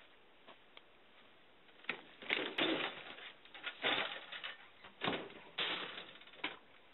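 Travel trailer's metal screen door being unlatched and opened, then a person climbing in over the doorway step. It sounds as an irregular run of clicks, rattles and knocks starting about two seconds in.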